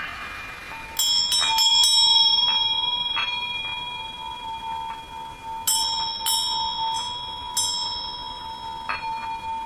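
Tibetan bowls and bells struck one after another, each strike ringing out and slowly fading. A cluster of strikes comes about a second in, more follow every second or two, and all of it rides over a sustained humming bowl tone.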